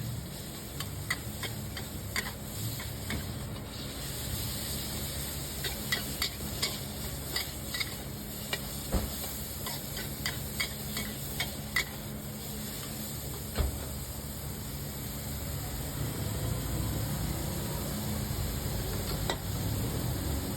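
Food sizzling as it is stirred and fried, with metal utensils clinking sharply against the pan many times in the first half and one louder knock past the middle, over a low steady hum.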